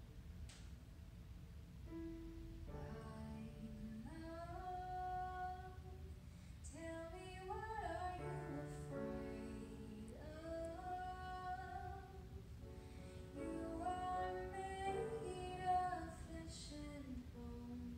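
A woman singing a slow melody with long held, gliding notes over sustained chords played on an electronic keyboard.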